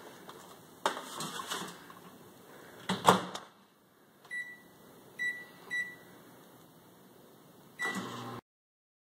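Over-the-range microwave being loaded and started: a knock, then the door shut with a loud clack about three seconds in. Three short keypad beeps follow, then the oven starts running just before the sound cuts off suddenly.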